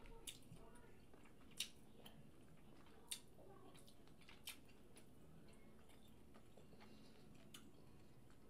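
Quiet chewing of a mouthful of seafood, with a handful of short, sharp, wet clicks from the mouth.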